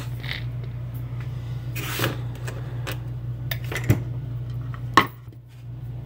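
Lock parts and tools being handled on a steel desk plate: a few sharp metallic clicks and taps, the loudest about five seconds in, over a steady low hum.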